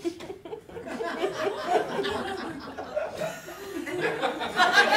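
Live audience laughing, the laughter swelling louder near the end.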